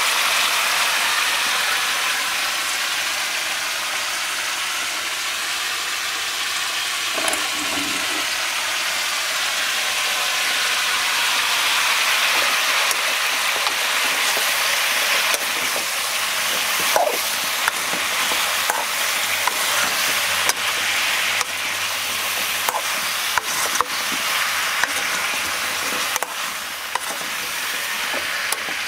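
Chopped brinjal and tomato pieces sizzling in oil in an aluminium kadai, a steady hiss. From about halfway on, a steel spoon stirring them clicks and scrapes against the pan.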